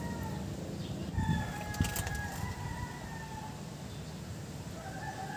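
A rooster crowing twice in long, slightly falling calls, one about a second in and another near the end. A couple of sharp metallic clicks come in between, as pliers work the metal clamp on a CV boot of the drive shaft.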